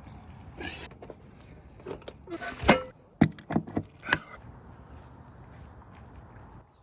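A few light knocks and clicks, scattered over about two seconds in the middle, against a faint quiet background.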